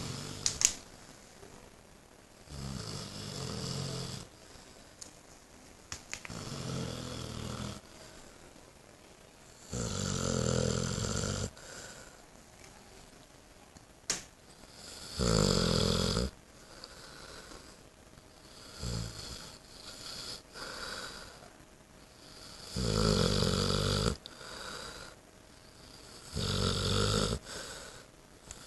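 Eight-month-old Saint Bernard snoring in deep sleep: a snore a second or two long about every three to four seconds, with quieter stretches between. A single sharp click sounds just under a second in.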